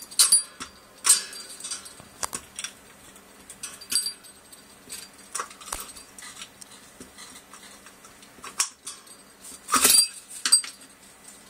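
The chain, small bell and glass ball of a hanging bird toy clink and jangle irregularly as a blue-crowned conure climbs on it. The loudest rattle comes just under ten seconds in.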